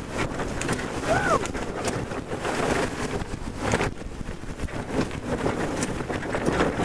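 Wind buffeting the microphone over water rushing and splashing along the hull of a C&C 39 sailboat heeled over under sail. A brief falling squeak or cry comes about a second in.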